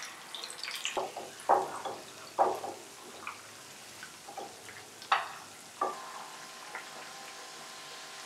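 Gram-flour-coated fish pieces deep-frying in hot oil in a pan: a steady sizzle broken by a handful of sharp, louder spits and crackles.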